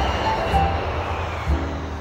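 Intro theme music: sustained low bass notes and a few high held notes over a rushing whoosh that thins out near the end.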